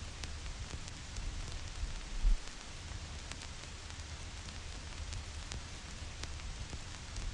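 Vinyl record crackle over steady white-noise hiss: scattered small clicks and pops, a low rumble underneath, and one heavier low thump about two seconds in.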